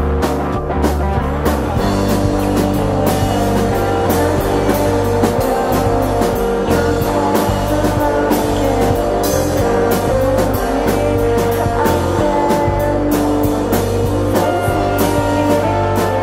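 Alternative rock recording with electric guitar and bass over a steady drum beat, in an instrumental passage; the bass line changes about two seconds in.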